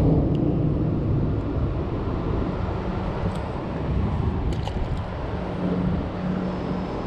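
Steady low rumble of road traffic heard from beneath a concrete bridge, with a faint steady hum joining it near the end. A few light clicks come about four and a half seconds in.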